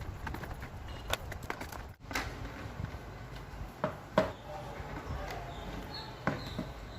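Scattered clicks and knocks of the air cooler's plastic parts being handled and fitted back together, the sharpest knock about four seconds in.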